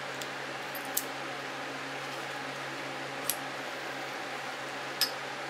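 Small metal transmission parts (washers and a gear cluster on its shaft) clicking three times as they are handled and fitted together, over a steady low hum.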